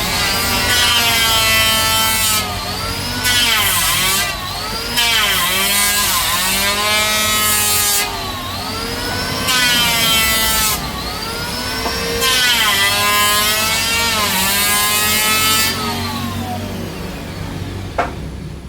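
Electric woodworking power tool running on Bayur timber in repeated loaded passes. Its motor whine dips and recovers in pitch with each of about five cuts, each with a burst of cutting hiss. It winds down near the end, and a single sharp click comes just before the end.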